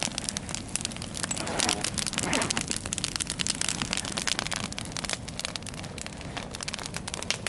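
Fire crackling steadily, a dense run of small pops and snaps.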